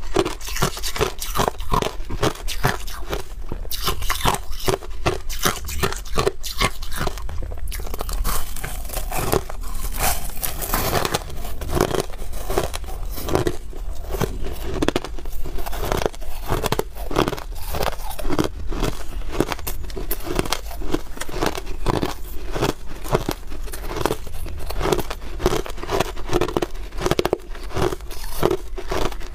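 Crushed ice being bitten and chewed close to a clip-on microphone: a dense, continuous run of crisp crunches, several a second.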